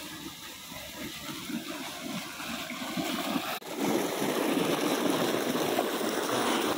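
Irrigation water running in a steady flow. The sound breaks off for an instant about halfway through and comes back louder.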